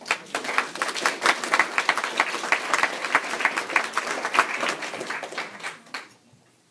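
Audience applauding, a dense patter of many hands clapping with some single claps standing out, dying away about six seconds in.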